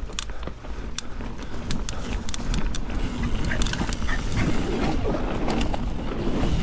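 Mountain bike rolling fast down a packed-dirt trail: tyre rumble and wind on the helmet camera mic, getting louder as the bike picks up speed, with many sharp clicks and rattles from the bike over the ground.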